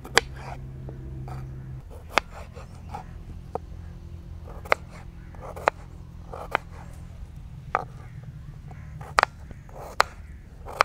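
Kitchen knife chopping peeled potatoes into large pieces on a wooden cutting board: sharp knocks of the blade hitting the board, roughly once a second, over a low steady hum.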